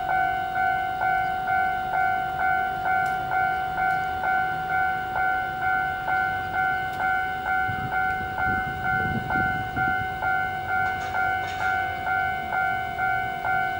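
Japanese railway level-crossing alarm ringing steadily, an electronic two-tone ding repeating about twice a second. Under it, from about eight seconds in, comes the low rumble of an Iyotetsu 700 series electric train drawing closer.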